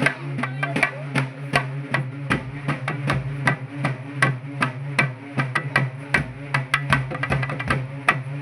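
Festival procession drums beating a fast, dense rhythm, with a steady low hum underneath.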